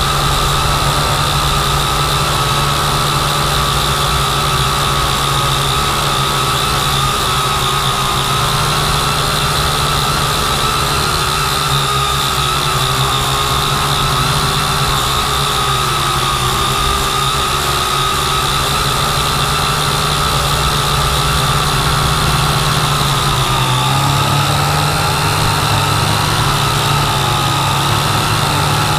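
Electric motors and propellers of a multirotor camera drone, heard from the camera on board: a steady, loud high whine that wavers slightly in pitch, dipping and coming back near the end, over a low rumble.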